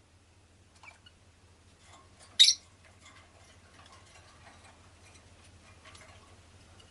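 Rosy-faced lovebird giving one short, sharp chirp about two and a half seconds in, with a fainter chirp earlier and light scattered ticks and clicks around it.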